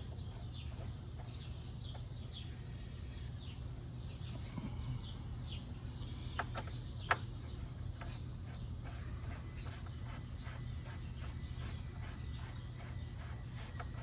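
Birds chirping, short high calls scattered throughout, over a steady low hum. A hex key works the brake caliper bolts by hand, with a few light clicks and one sharp click about seven seconds in.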